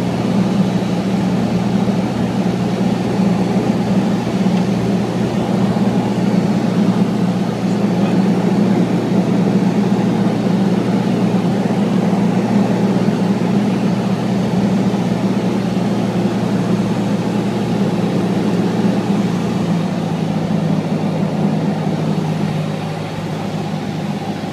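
Light high-wing airplane's piston engine and propeller droning steadily, heard inside the cabin. Near the end the note shifts and the drone grows a little quieter.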